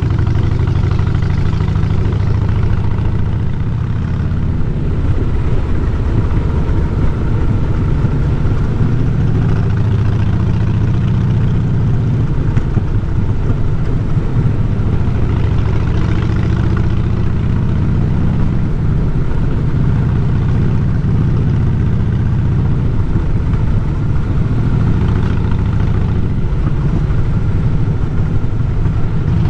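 Harley-Davidson Fat Boy's air-cooled V-twin engine running steadily as the motorcycle rides along, a low, even engine note.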